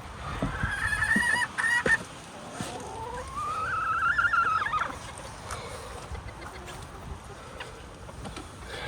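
A hen calling: two short, high calls in the first two seconds, then one long drawn-out call that rises in pitch, holds for about two seconds and stops.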